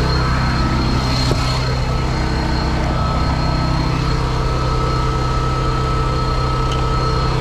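Truck engine idling steadily, with a thin high whine above it.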